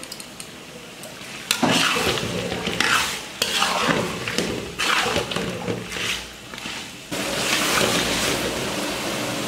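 Fried fish heads being stirred into a spice paste in a cooking pan: a run of loud scraping strokes of the stirrer against the pan starting about a second and a half in, then a steady sizzling hiss from about seven seconds in.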